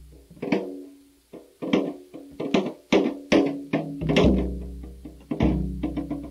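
Instrumental music: plucked string notes, each struck sharply and left to ring, with a few deep drum strokes underneath.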